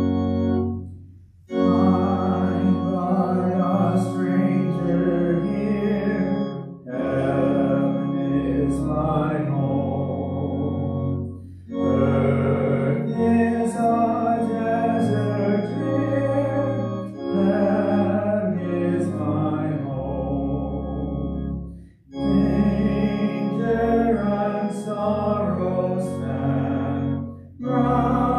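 Church organ accompanying a congregation singing a hymn. The sustained chords come in lines of about five seconds, each followed by a short break.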